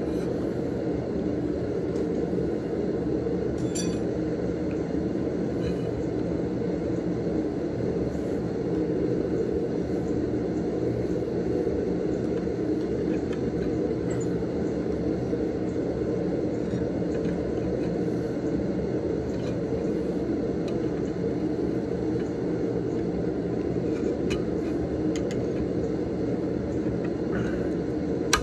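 A forge running with a steady low roar throughout, with a few faint light clinks of steel as a grill rack and a red-hot pigtail are worked onto a steel rod.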